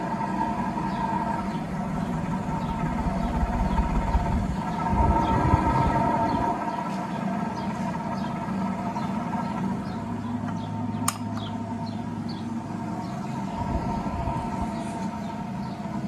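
A 1980s Gulf Coast 36-inch ceiling fan running at speed, its motor giving a steady whine, with bearings that are shot. A low rumble fades out about six seconds in, and a single sharp click comes near eleven seconds.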